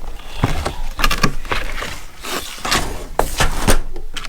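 Tools and plastic packaging being handled on a table: a run of irregular sharp clicks and knocks with some rustling in between.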